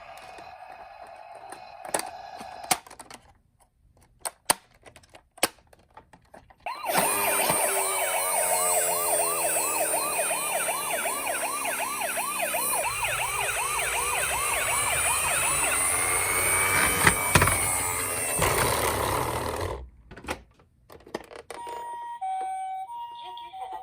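Toy ambulance minicar's battery-powered electronic siren playing through its small speaker: a loud, fast up-and-down wail for about thirteen seconds that cuts off suddenly. Plastic clicks of the toy being handled come before and after it, and near the end a two-tone hi-lo ambulance siren starts.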